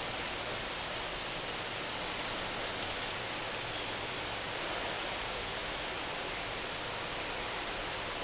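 Steady, even outdoor background hiss with no distinct events, and one or two faint high chirps about six seconds in.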